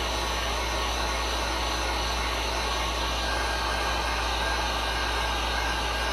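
Electric heat gun running steadily, a constant rushing blow of hot air with a low hum underneath, passed over freshly poured epoxy resin to bring up and pop air bubbles.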